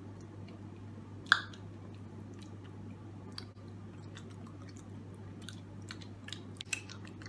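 Wet mouth sounds of chewing chocolate and smacking lips while tasting it, as small scattered clicks, with one sharp smack about a second in.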